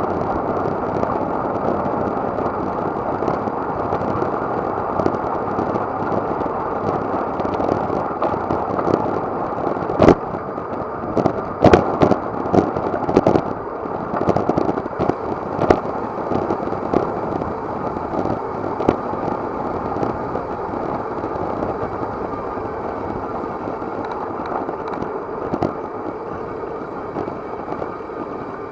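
Steady rush of wind and road noise on the camera microphone of a moving road bike, with a burst of sharp knocks and rattles about midway, as from the bike jolting over rough road.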